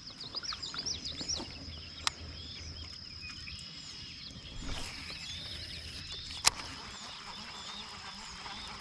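Birds chirping and calling, many short quick chirps at first and then sparser, over a steady high-pitched whine. A sharp click about six and a half seconds in is the loudest sound, with a fainter click about two seconds in.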